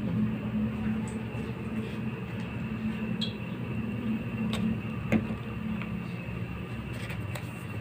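A steady low hum with a thin high tone over it, and a couple of light clicks a little past halfway through.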